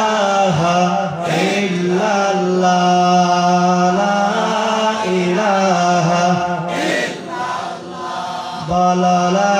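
A man chanting a devotional melody, unaccompanied, into a microphone, in long drawn-out held notes. There are short breaks for breath about a second in and about seven seconds in.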